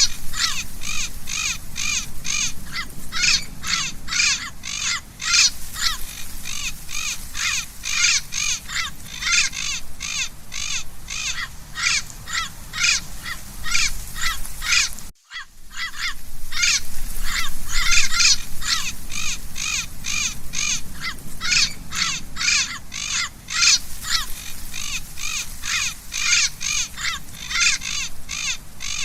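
Parrot squawking over and over in rapid calls, about three a second, with a very short break about halfway through.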